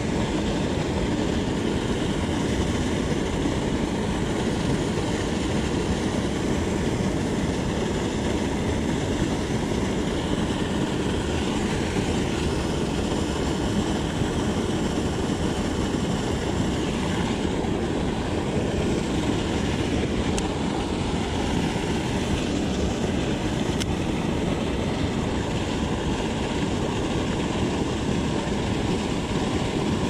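Steady rushing of water pouring from a concrete spillway pipe and splashing into a creek pool.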